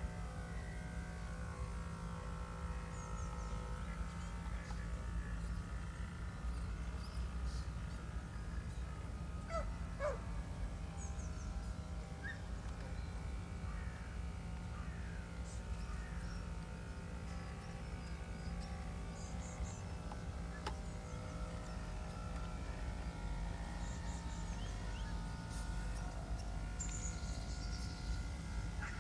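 Outdoor pond-side ambience: a steady low rumble with scattered short bird calls and chirps.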